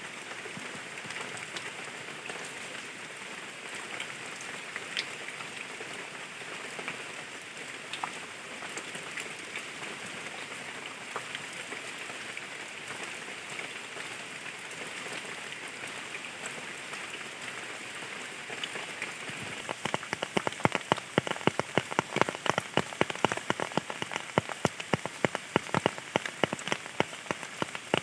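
Rain falling steadily in an even hiss, with scattered single drops. About two-thirds of the way through, a close, rapid patter of large drops striking a surface starts and keeps on, louder than the rain behind it.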